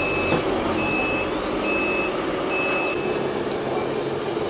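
Reversing beeper of an RC 6x6 dump truck's sound unit: a high electronic beep repeating a little faster than once a second, stopping about three seconds in, over a steady running noise.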